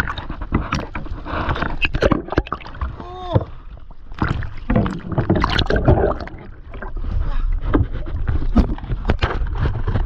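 SUP paddle working in seawater, with splashing and gurgling water and frequent sharp knocks and rubs on the paddle-mounted camera. A brief warbling sound comes about three seconds in.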